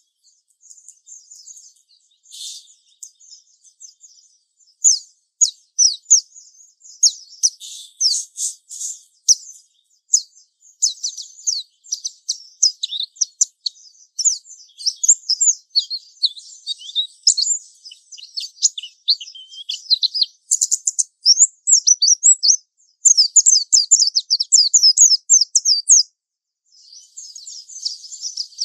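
Japanese white-eye singing a long, rambling run of rapid high-pitched chirps and trills, the drawn-out 'ngalas' song. Near the end comes a very fast stretch of notes, then a brief pause before the singing resumes.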